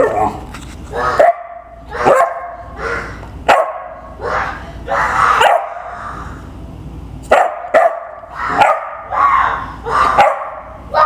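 A puppy barking in short, sharp barks about one a second, mixed with a child imitating the barks. There is a brief pause about six seconds in.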